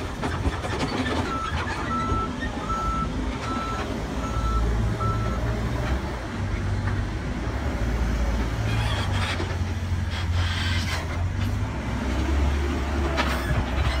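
Diesel engine of a Terex TLB840 backhoe loader running steadily, with a backup alarm giving about six short, evenly spaced beeps in the first few seconds. A few knocks follow later on.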